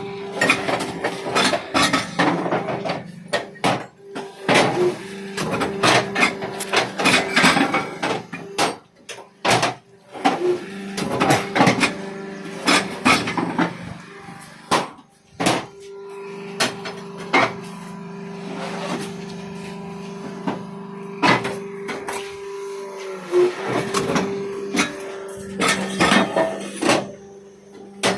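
Irregular sharp clacks and knocks of paver blocks being set and tapped into place, over a steady hum.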